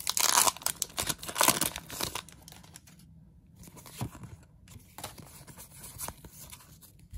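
Foil wrapper of a Pokémon card booster pack torn open in two loud rips within the first two seconds, then quieter crinkling and rustling as the wrapper and cards are handled.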